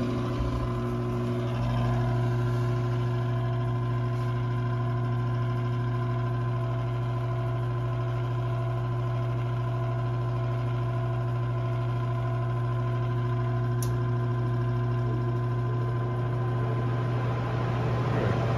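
Intertherm mobile home gas furnace running with its burner lit: a steady motor hum with several constant tones over it. There is a faint click about fourteen seconds in.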